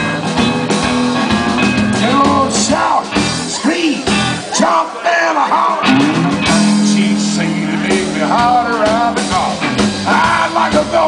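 Live blues-rock band: electric guitars and a drum kit playing loudly, with a lead line that slides up and down in pitch.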